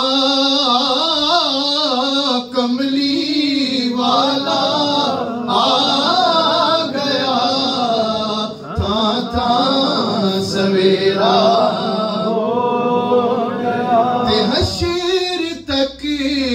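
A man singing a Punjabi naat in a solo voice, drawing out long notes that bend and waver in pitch, with short pauses for breath between phrases.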